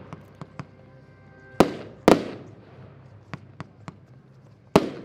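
Diamond Inferno 120-shot compound fireworks battery firing: sharp reports, two about half a second apart roughly one and a half seconds in and another near the end, with smaller crackling pops between them.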